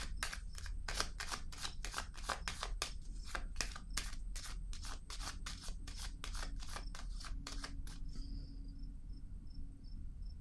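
A deck of tarot cards being shuffled by hand: quick, slightly irregular snapping clicks, about three to four a second, that stop about eight seconds in. After that a cricket chirps faintly in short, evenly spaced pulses.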